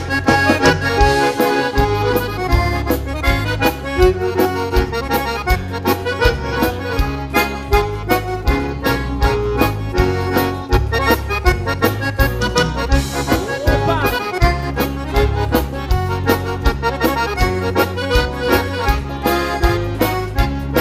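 Instrumental passage of a bandinha dance song: accordion carries the melody over a steady bass and drum beat.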